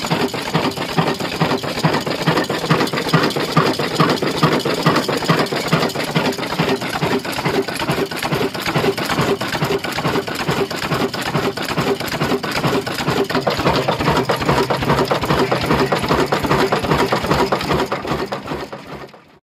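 Old oil-blackened stationary engine running fast, a rapid, even mechanical clatter from its valve gear and moving parts. It fades out near the end.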